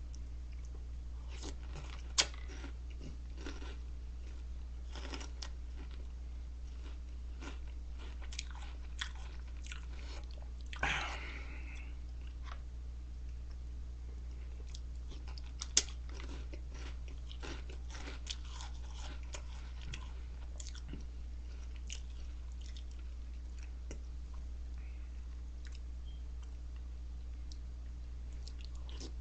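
Close-up chewing and crunching of Reese's Puffs corn-puff cereal, eaten spoonful by spoonful, with a few sharp clicks of the metal spoon against the bowl. A steady low hum runs underneath.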